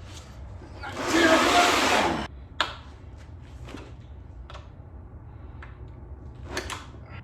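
Handling noise while unpacking a transmission: a loud rustling scrape lasting about a second, then a few scattered clicks and knocks.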